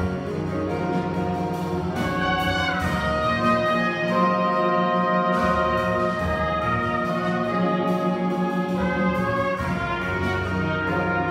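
A jazz big band playing live: brass and saxophone sections holding full chords over piano, bass and drums, the harmony shifting every few seconds.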